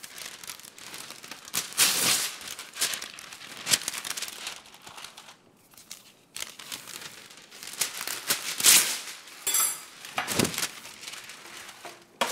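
Irregular crinkling and rustling from handling, with several sharp knocks and a short run of quick clicks, while small potatoes are being sorted.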